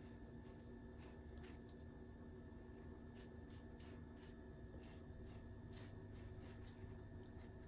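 Faint, soft scraping of a metal spoon spreading ketchup across slices of sandwich bread, in short irregular strokes, over a low steady hum.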